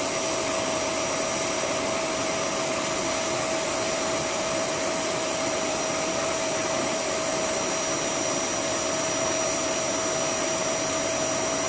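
Vacuum cleaner running steadily, a constant whine over the rush of air, as it sucks dust out of a split-system air conditioner's cooling fins.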